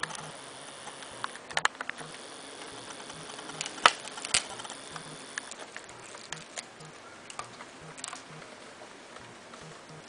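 Small clicks and taps of plastic parts being handled: a tubing connector pushed onto a printer's waste-ink port and a plastic bottle with tubing, the loudest pair of clicks about four seconds in. A faint regular ticking, about two to three a second, runs underneath.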